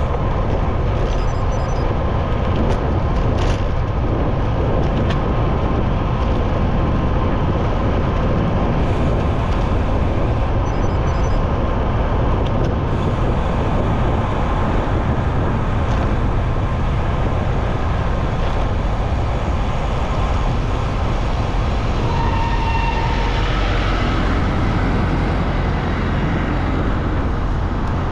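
Steady rumble of wind on the microphone and city traffic noise heard from a moving bicycle, with a brief high tone about three-quarters of the way through.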